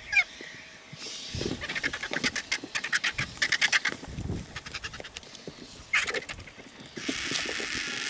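Vultures squabbling at a carcass: harsh, rapid cackling chatters and squeals, with a steadier hissing noise taking over near the end.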